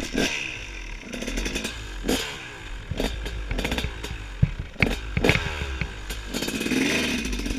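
Two-stroke dirt bike engine with a Bill's Pipes expansion chamber revving up and down as it is ridden, its pitch repeatedly rising and falling. Several sharp knocks and clatter come through along the way.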